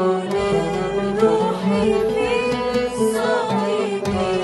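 Arabic Christian Lenten hymn: a singing voice with ornamented, gliding melody lines over sustained instrumental accompaniment.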